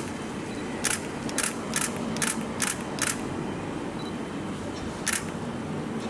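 Steady outdoor background noise broken by a run of sharp clicks, about seven in the first three seconds and one more about five seconds in.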